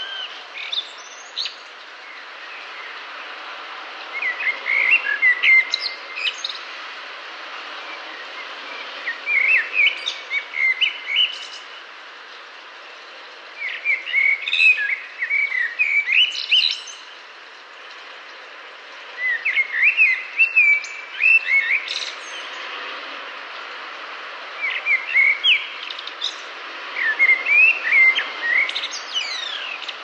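A songbird singing in short phrases of quick chirping notes, each about two seconds long with pauses of a few seconds between them, over a steady background hiss.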